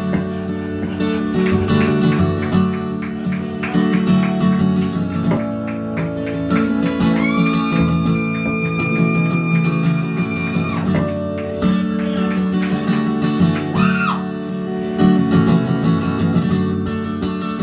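Live acoustic guitar strumming with electric bass in an instrumental stretch of a song, with a long high note held for a few seconds midway through.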